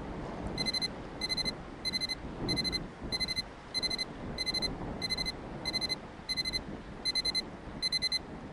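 Electronic timer alarm beeping twelve times, each a short cluster of rapid high beeps, about one and a half clusters a second. The twelve beeps signal that twelve minutes have elapsed. Under it is a steady low wash of outdoor wind and water noise.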